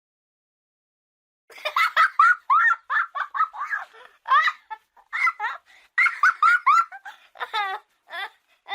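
A young child laughing: after a second and a half of silence, a long run of rapid, high-pitched giggling laughter in quick bursts.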